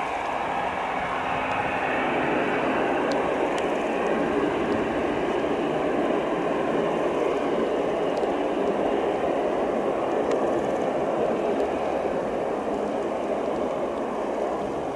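The An-26B's two Ivchenko AI-24VT turboprop engines running at taxi power as the aircraft rolls along the runway: a steady, noisy drone that grows slightly louder about two seconds in.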